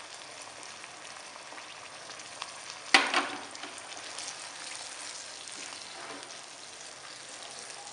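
Chicken, peas and vegetables sizzling in hot oil in a pan as chilli sauce is poured in and stirred with a silicone spatula. A steady frying hiss, with one sudden louder burst about three seconds in.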